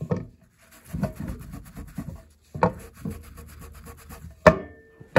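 Wet paper napkin rubbing and dabbing across a faux-wood bar-stool seat: soft scrubbing broken by a few short scuffs, with a sharp tap near the end.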